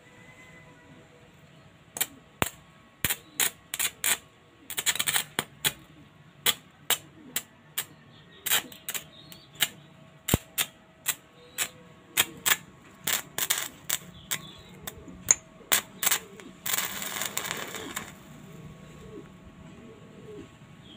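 Electric arc snapping and crackling where a thin metal rod, held in pliers, touches an adjustable wrench wired to a power lead. There are sharp irregular snaps, about two a second, with a short sputtering sizzle about five seconds in and a longer, steadier one near the end.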